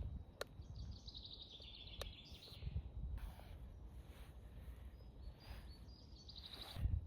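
A songbird sings a trill that falls in pitch about a second in. Against it come two sharp clicks and several short scrapes of a knife in a metal tin as spam is diced.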